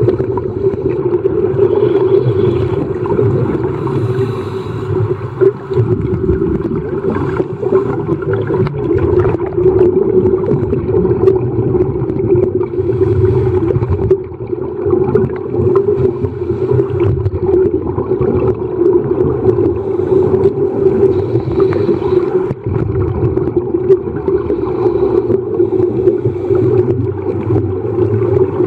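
Underwater sound picked up by a submerged camera: a steady hum with an uneven rough texture and faint clicks over it.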